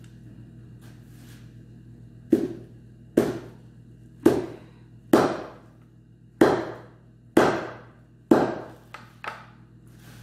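Large knife chopping through raw meat and bone onto a metal tray: seven heavy blows about a second apart, each ringing briefly, then two lighter blows near the end.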